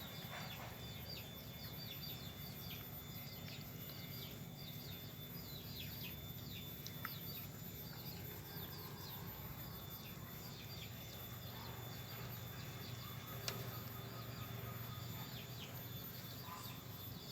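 Small birds chirping: many quick, high, downward-sliding chirps, several a second, thinning out after about ten seconds, over a steady low hum.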